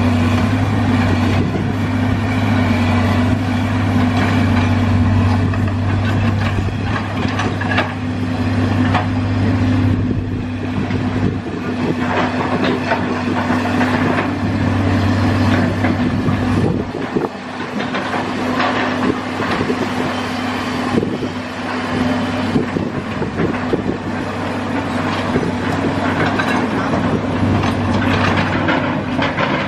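JCB excavator's diesel engine running steadily under load while its hydraulic breaker hammers repeatedly on concrete, breaking it up. The low engine hum dips briefly a little past halfway, then comes back.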